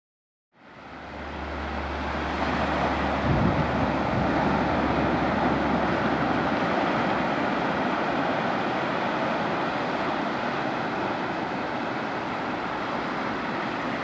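Sea surf washing over sand, a steady rush of noise that fades in at the start. A low rumble underneath drops away about six seconds in.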